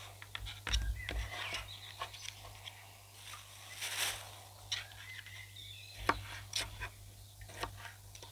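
Kitchen knife cutting through a yellow capsicum (bell pepper) and knocking on a plastic cutting board: irregular crisp cuts and taps, the loudest about halfway through.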